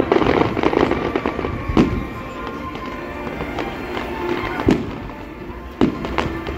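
Display fireworks bursting overhead: a dense run of bangs and crackling in the first second. After that come separate sharp bangs about two seconds in, near five seconds and near six seconds.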